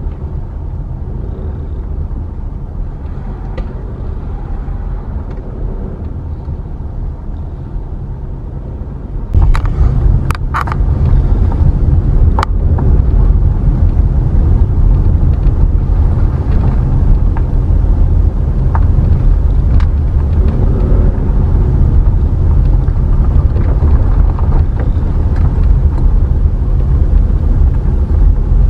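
Low, steady rumble of a car's engine and tyres heard from inside the moving car. About nine seconds in it gets clearly louder, with a few sharp clicks just after.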